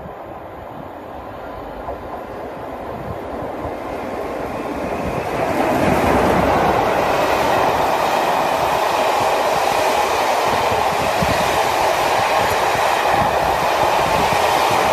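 The Royal Scot, an LMS Royal Scot class steam locomotive, hauling a passenger train at speed. It grows steadily louder over the first six seconds or so as it comes up and passes, then comes a loud, steady noise of its coaches rolling by on the track.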